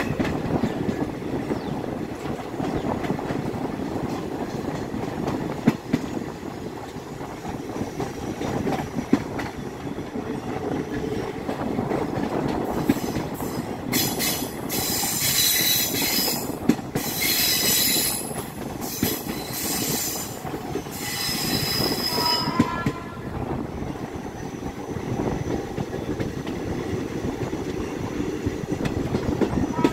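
Coaches of an Indian Railways passenger express rolling at speed, heard from an open coach door, with a steady rumble and occasional knocks of wheels over rail joints. From about halfway the wheels squeal on the curve in several high, shrill bursts lasting around ten seconds.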